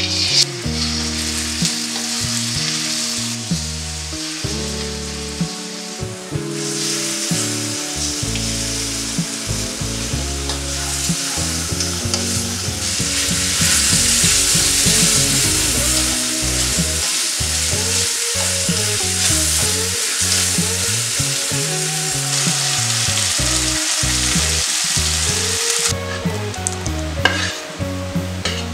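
Chicken pieces frying and sizzling in hot coconut oil in a wok while being stirred and scraped with a spatula. The sizzle is loudest around the middle and drops away a couple of seconds before the end.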